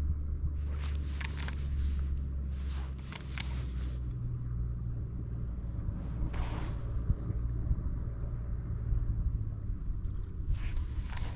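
Wind buffeting the microphone: a steady low rumble with several short, louder gusts.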